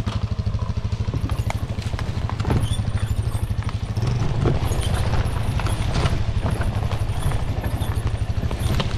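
Dirt bike engine running at low revs with an even, rapid putt as the bike rolls slowly along a trail, with a few sharp clicks scattered through.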